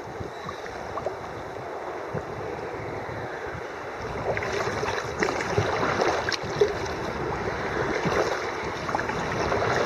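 Water rushing and splashing around a kayak on a flooded river. The sound gets louder and splashier about four seconds in.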